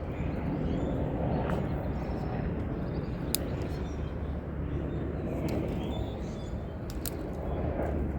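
Steady low rumble of outdoor background noise, with a couple of faint sharp clicks.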